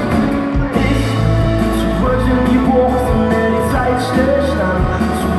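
A live pop-rock band playing, with electric and acoustic guitars, drums and keyboard, and singing over it.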